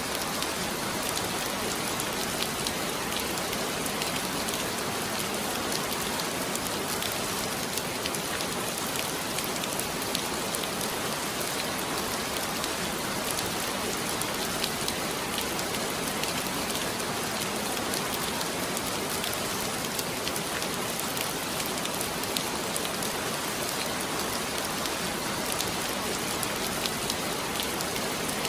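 Heavy rain falling steadily, a constant even hiss of many drops with fine ticks of individual drops striking a surface.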